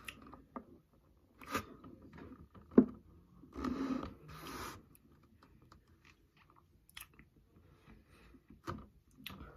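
Wet mouth smacks and clicks from tasting and licking a Slime Licker liquid sour candy, with scattered sharp clicks (the loudest about three seconds in) and a short rustling patch around four seconds in from handling the plastic candy containers.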